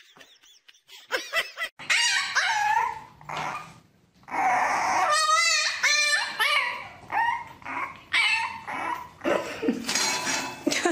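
A dog whining and yipping: a string of short calls that bend up and down in pitch, one of them wavering.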